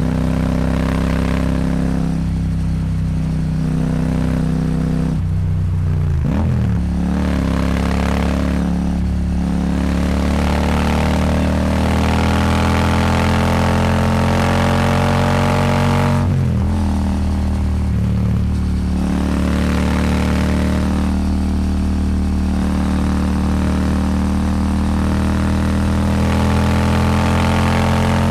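Royal Enfield Super Meteor 650's 648 cc parallel-twin engine pulling hard through a Rhino Racing slip-on exhaust, its pitch climbing steadily with two upshifts, about six and sixteen seconds in, each a brief dip before it climbs again. Wind rush runs under the exhaust note.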